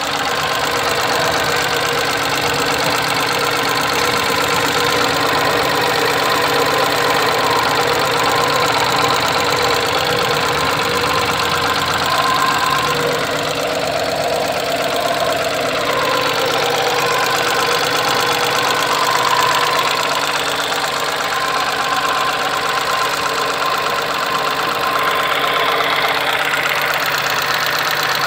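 Tata Ace Gold BS6 mini-truck's newly fitted engine idling steadily.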